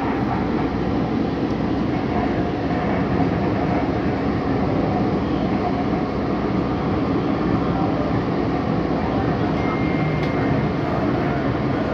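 Interior running noise of a Long Island Rail Road M3 electric multiple-unit car: a steady rumble of wheels on rail and traction equipment as the train slows into a station. A brief high tone sounds about ten seconds in.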